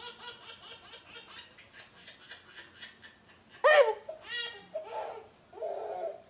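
Baby laughing hard in a quick run of short laughs, then letting out one loud, high squeal of laughter about halfway through, followed by a few more laughs.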